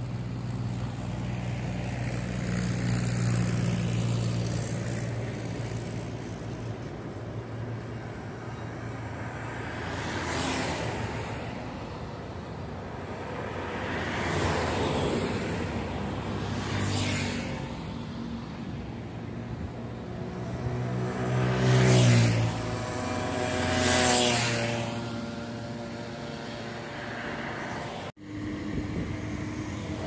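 Vehicles passing one after another on a highway, each swelling and fading over a steady traffic rumble, about six passes, the loudest about 22 and 24 seconds in. The sound cuts out briefly just before the end and gives way to a steady drone.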